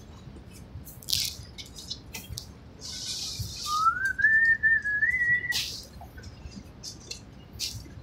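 A person whistling one wavering note that slides upward in pitch for about two seconds, midway through, over scattered light clicks and scrapes of work on the floor.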